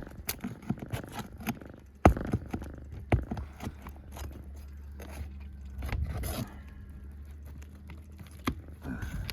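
Scraping, clicks and knocks of hand tools working loose shingles and roofing nails, with a sharp knock about two seconds in and another about a second later.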